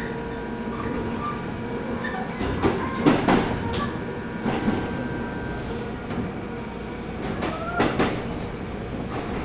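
Seoul Subway Line 4 train running slowly, heard from inside the carriage: a steady rumble with the wheels clacking over rail joints in quick pairs, three times. There is a brief squeal just before the last pair.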